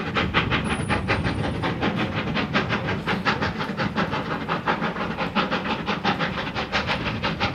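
Steam locomotive under way, its exhaust beats coming quickly and evenly over a steady hiss of steam.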